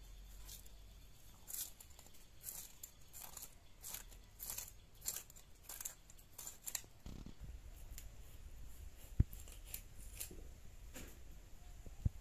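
Small snakehead fish being scaled by scraping them against a boti, an upright curved kitchen blade: a run of short rasping scrapes, about two a second, thinning out in the second half. Two sharp clicks stand out, one about two-thirds through and one at the very end.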